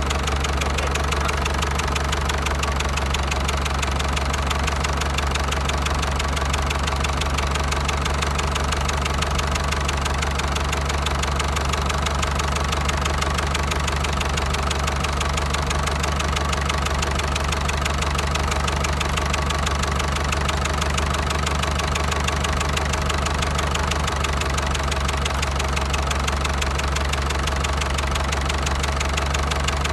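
Diesel engine running steadily with a fast, even knock.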